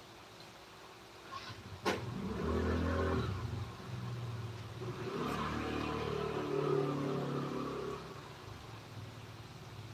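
A sharp click, then a motor running for several seconds with its pitch rising and falling.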